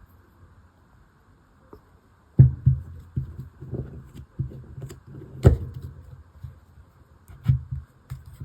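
Irregular knocks and clicks of objects being handled and set down on a tabletop, with light scraping between them. The loudest knocks come about two and a half seconds in and again around five and a half and seven and a half seconds.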